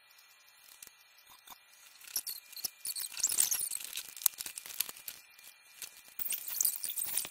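Irregular scratching and crackling with small sharp clicks. It picks up about two seconds in, eases off, and picks up again near the end.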